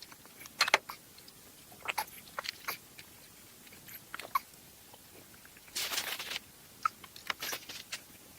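Handling noise from unpacking a crate: scattered clicks, taps and crunching rustles, with a longer crunching rustle about six seconds in.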